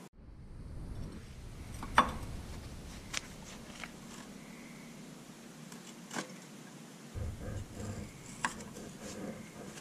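A few sharp metallic clinks of a steel combination wrench against the hydraulic line fittings on a mini excavator's final drive motor, the loudest about two seconds in, with low rubbing and handling noise between them.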